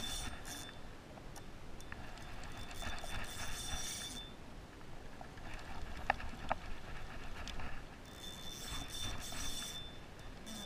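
Spinning reel being cranked in bursts, its gears whirring as line is wound in, with two sharp clicks about six seconds in.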